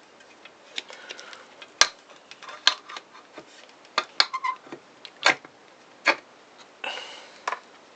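Irregular clicks and taps of plastic parts of a Makita 5621 circular saw being handled and fitted together, as the motor's dust guard goes on. There is a sharp click about two seconds in and a brief rustle near the end.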